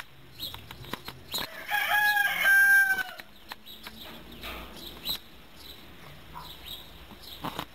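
A rooster crowing once, about a second and a half in, the call ending on a long held note. Scattered faint clicks and knocks around it.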